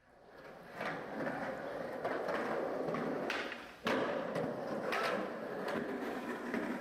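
Skateboard wheels rolling over concrete with a steady rumble, broken by several sharp knocks of the board's tail and trucks. The loudest knock comes about four seconds in.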